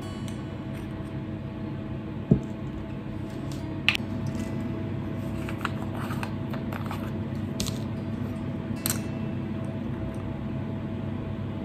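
Spice jars and a spoon clinking and tapping against a metal mesh sieve and bowl as spices are added to flour, with a sharp knock about two seconds in and a few lighter clicks later, over a steady low hum.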